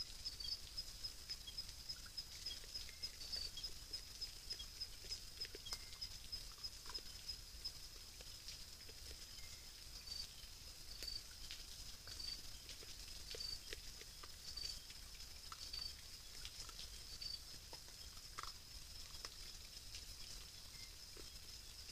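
Faint crunching, clicking and rustling of pacas feeding on corn kernels, in scattered short ticks, over a steady high-pitched pulsing trill.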